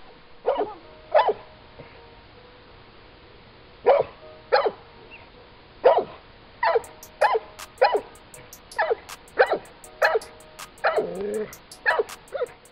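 A large dog barking in short single barks, about fourteen in all, with one longer drawn-out bark near the end. Faint background music runs underneath, and a light ticking beat joins it about halfway through.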